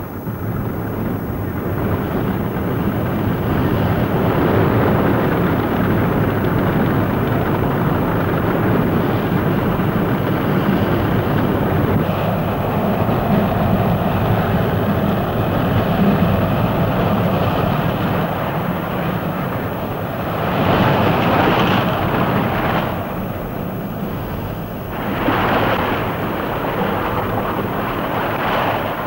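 Battle soundtrack of tanks on the move: a dense, steady rumble of engines and tracks, with two louder blasts late on.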